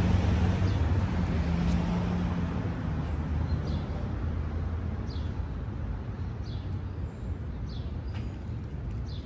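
Low traffic rumble fading away over the first few seconds, then a bird's short, falling chirps repeating about every second and a quarter, with a few faint clicks near the end.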